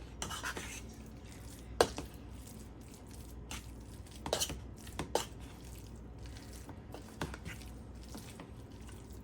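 A utensil clinking and scraping against a bowl as a shredded chicken, barbecue sauce and cheese filling is stirred together: a few sharp clicks, the loudest about two seconds in and a small cluster later, with soft wet mixing sounds between.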